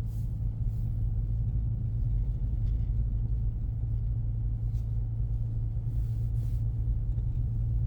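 Steady low drone inside the cabin of a 2024 Ford Mustang EcoBoost (2.3-litre turbocharged four-cylinder) driving on a snow-packed road: engine hum mixed with tyre and road rumble, with a few faint ticks.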